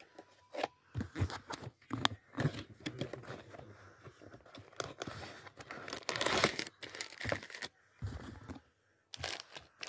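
Cardboard toy-car gift box and its plastic packaging being handled and opened by hand: a run of crackling, tearing and crinkling, loudest about six seconds in.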